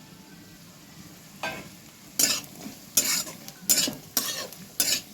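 Spatula stirring coconut, cashews and raisins frying in hot mustard oil and ghee in a kadai. A faint sizzle at first, then from about a second and a half in, six stirring strokes, each with a burst of sizzle.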